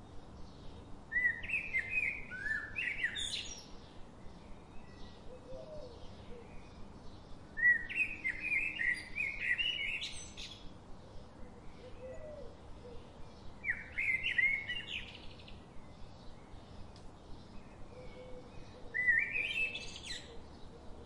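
A songbird singing a short phrase of rapid, high notes four times, about once every six seconds, over a faint steady outdoor background.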